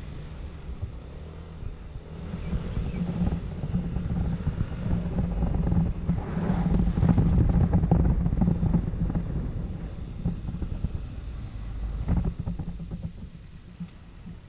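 Yamaha NMAX scooter's engine running on the road, with wind rushing over the camera microphone. The engine and wind noise build to their loudest near the middle, then ease off toward the end.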